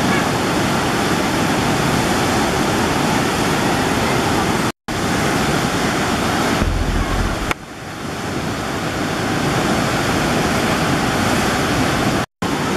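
Floodwater of the Myagdi river in spate, a steady loud rushing roar of fast, muddy water. It cuts out completely for an instant twice, about a third of the way in and near the end, and a short low rumble is followed by a brief dip in level about halfway through.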